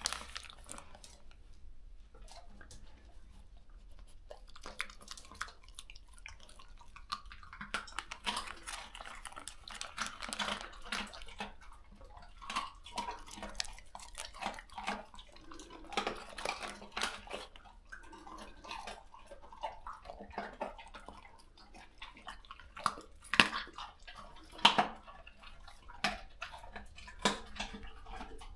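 Plastic bag crinkling as raw chicken necks are handed out, with dogs chewing and crunching the raw necks, bones and all: irregular wet clicks and crackles, and a few louder sharp cracks about three-quarters of the way through.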